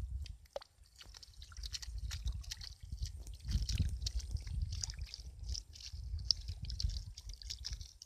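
Hands scraping, scooping and patting wet, sandy mud: irregular small squelches and gritty scrapes over a low rumble.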